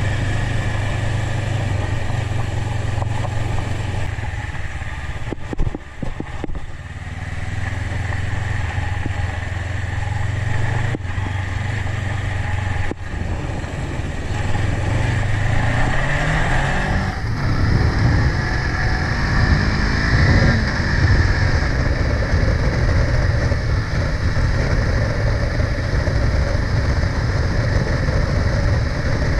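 Honda CB500X's parallel-twin engine running under way, with road and wind noise. The engine note breaks off briefly about six seconds in as the throttle closes, climbs in pitch as it accelerates a little after the middle, and turns rougher and noisier after that, with a few more short climbs.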